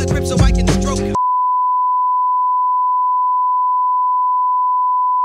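Music cuts off about a second in. A steady, unbroken 1 kHz reference test tone replaces it: the line-up tone that goes with colour bars.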